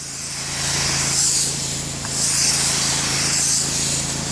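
Spray of liquid hissing onto concrete, swelling and fading in slow waves, over a steady motor hum from the spraying equipment.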